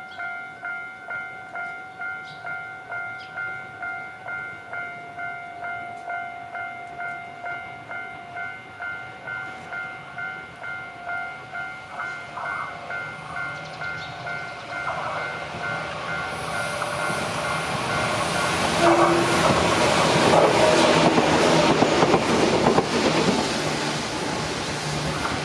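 Japanese level-crossing warning bell ringing its electronic two-tone ding about one and a half times a second. From about 15 seconds in, an electric train approaches and passes through the crossing, its wheel and running noise loudest in the last third, with the bell still ringing underneath.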